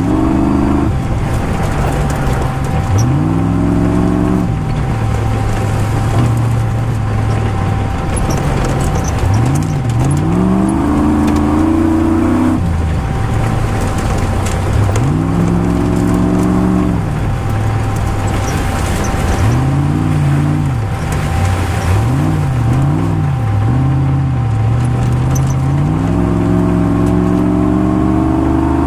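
Rally car engine heard from inside the cabin, revving hard and rising in pitch, then dropping back as it shifts gear or lifts off, over and over. A steady high whine runs underneath, with scattered knocks and rattles from the rough gravel track.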